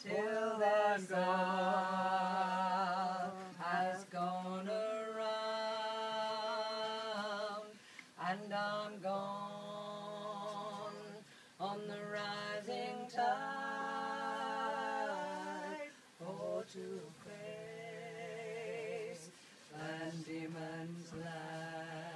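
A cappella singing: long held notes with vibrato, sung in phrases with short breaks between them, over a low note held underneath.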